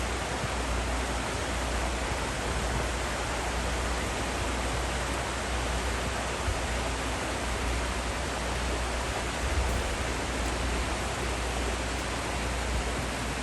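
A small mountain river running over little cascades: a steady, even rush of water.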